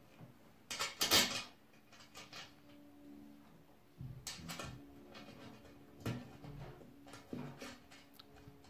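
Small steel bolts and washers clinking as they are picked up off the table and fitted through a metal bobber seat base plate and bracket, with the parts knocking together: a few separate clatters, the loudest about a second in.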